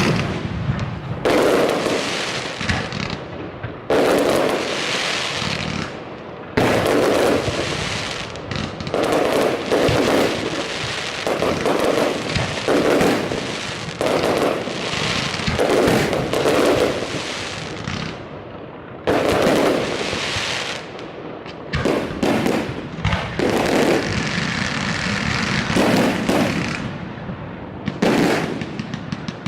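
Aerial fireworks shells bursting in quick succession, a loud bang every second or two. Each bang trails off into a rolling echo, and some are followed by crackling.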